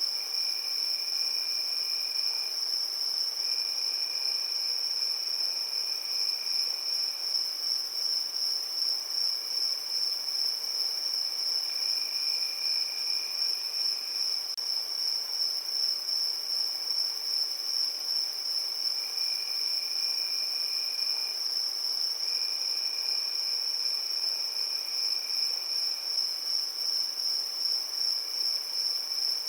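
Crickets chirring in an unbroken, high-pitched, finely pulsing trill. A second, lower-pitched trill comes and goes in stretches of a few seconds.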